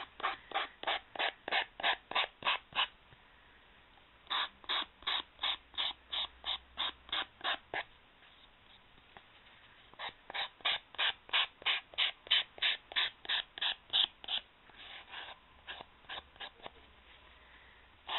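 A coarse emery-board file rasping back and forth along the cut edge of a chipboard heart to smooth it, about three strokes a second. The strokes come in runs of a few seconds with short pauses between, the last run fainter.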